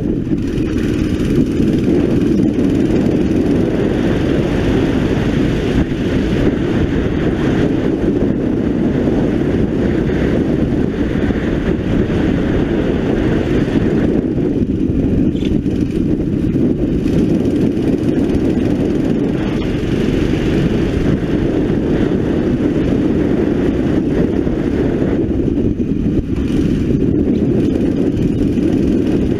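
A 9 hp racing kart engine running under load through a lap, heard from a camera mounted on the kart. Its note swells and eases as the kart speeds up on the straights and slows for the corners, and wind rush on the microphone runs through it.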